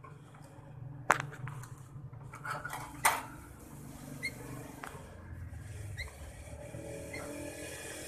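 A caged sooty-headed bulbul gives a few short, faint call notes, spaced a second or two apart, in the second half. Two sharp clicks, about a second and three seconds in, are the loudest sounds, over a steady low hum.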